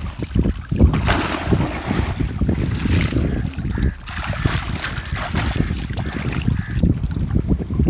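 Wind buffeting the microphone, with a water buffalo sloshing in a muddy wallow as it heaves itself up and stands in the water.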